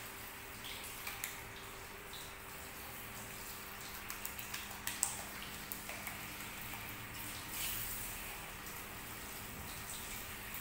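Water spraying from a handheld shower head over a man's face and hair into a shampoo basin: a steady hiss of running water with scattered small splashes and clicks, the sharpest about halfway through.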